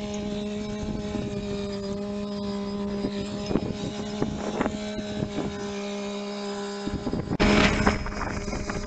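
Compact tractor's diesel engine running at a steady speed as it pulls an implement over dirt, with light rattles and wind on the microphone. A brief louder rush of noise comes about seven and a half seconds in.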